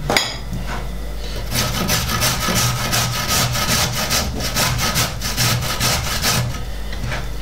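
Carrot being grated on a stainless steel box grater on a wooden board: quick rasping strokes, about three a second, starting about a second and a half in and stopping shortly before the end. A brief sharp knock at the very start.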